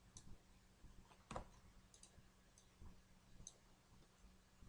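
Near silence with a few faint computer mouse clicks, scattered irregularly, over a faint steady hum.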